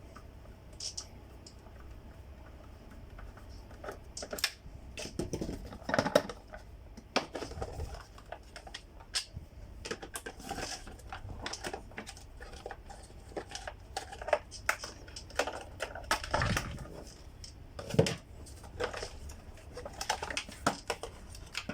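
Irregular clicks, taps and knocks of a plastic vacuum-cleaner housing being handled and taken apart, with a few louder knocks scattered through.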